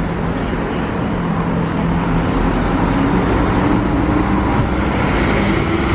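A coach driving past close by without stopping, its engine running steadily, growing slowly louder as it approaches and passes.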